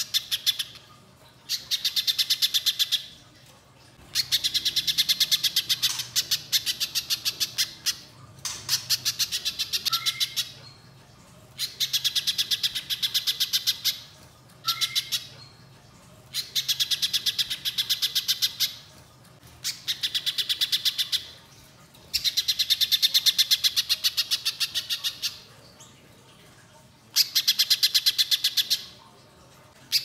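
Little spiderhunter singing: rapid runs of sharp, evenly repeated notes, each run one to three seconds long, with short pauses between the runs.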